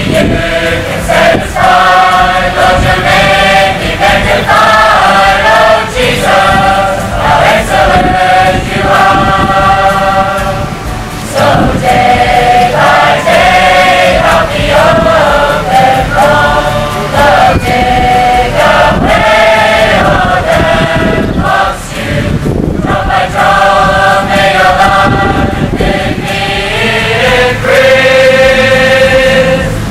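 A large mixed group of teenage boys and girls singing a Christian song together as a choir, in sustained phrases with short breaths between lines, about a third and two thirds of the way through.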